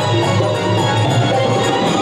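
Marwari desi bhajan music: a harmonium plays a sustained melody over steady percussion, with no singing.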